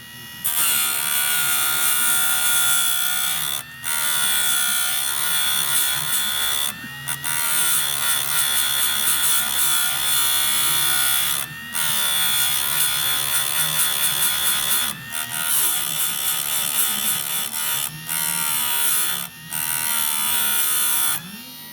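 Electric chainsaw-chain sharpener's grinding wheel grinding a chain tooth: a harsh, high grinding hiss over a motor whine that shifts in pitch, in passes of a few seconds each broken by brief dips.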